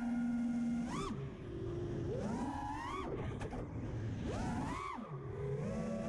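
FPV quadcopter's brushless motors whining, the pitch climbing and dropping sharply with three throttle punches, then holding steadier and lower near the end.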